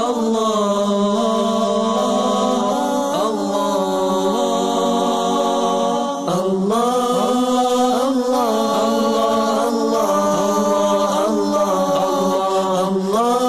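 Unaccompanied chanted vocal music, an a cappella nasheed-style chant with long held notes that slide between pitches, breaking off briefly about six seconds in.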